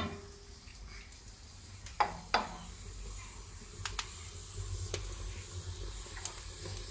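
Two sharp knocks about two seconds in, then a wood fire in a chulha crackling now and then over a steady low rumble.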